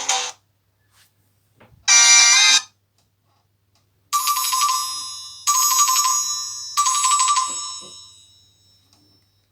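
Nokia C5-00 phone playing its built-in ringtones: a melody cuts off at the start, a short snippet sounds about two seconds in, then a bell-like ring tone sounds three times, each ring fading, the last dying away near the end.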